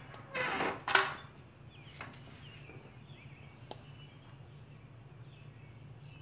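Leather-soled shoes on a stone floor as a man steps in over a wooden door threshold. A short scuff is followed by a sharp heel click about a second in, then a couple of faint single taps. Faint bird chirps sound in the background.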